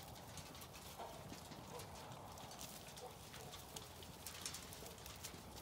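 Faint scattered taps and shuffles from a row of Zwartbles ewes feeding at a trough, licking up the last of their rolled barley.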